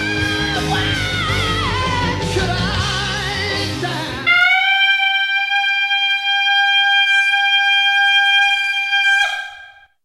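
A recorded song with band accompaniment, a high voice singing with vibrato. About four seconds in it gives way to a single high sung note, unaccompanied and held steady with no vibrato for about five seconds, before it breaks off and fades near the end. This is a vocal demonstration of a sustained high note.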